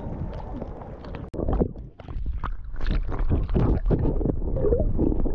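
Seawater sloshing and splashing over a camera held at the surface. About one and a half seconds in, after a brief dropout, the sound turns to a louder, muffled low rumble with irregular splashes as the camera goes under the water.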